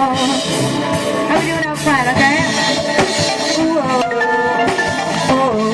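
Live band playing a song, with a drum kit under a pitched melodic line that glides up and down.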